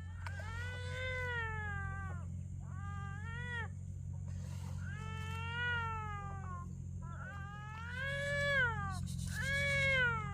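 A cat meowing over and over, six drawn-out calls that each rise and then fall in pitch, over a steady low hum.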